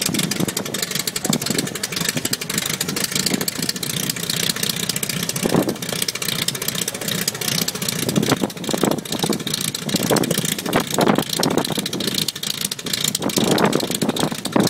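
Albatros D.Va biplane's aero engine running at idle on the ground just after start-up, a steady loud drone with the propeller turning, swelling a little at moments.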